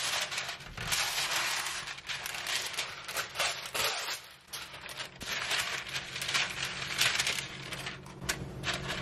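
Parchment paper crinkling and rustling as it is unrolled from its box and spread over a metal baking sheet, a run of irregular sharp crackles.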